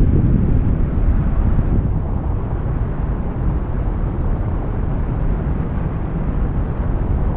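Wind buffeting the microphone as a paraglider flies, a steady deep rushing rumble that eases slightly about two seconds in.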